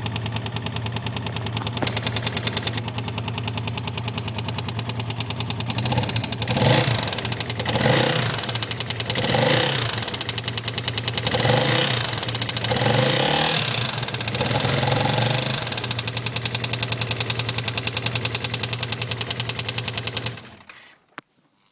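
Yamaha X-Max scooter engine idling, then revved in several short blips of the throttle, back to a steady idle, and switched off near the end.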